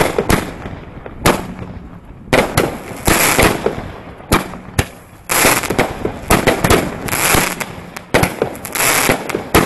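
Consumer firework battery (cake) firing shot after shot: a sharp bang every second or two, each followed by about half a second of crackling from the bursts in the sky.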